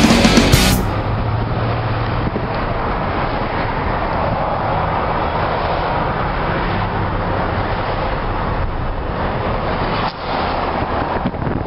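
Loud rock music with electric guitar cuts off about a second in, giving way to steady road and engine noise inside a moving car, with a low hum underneath.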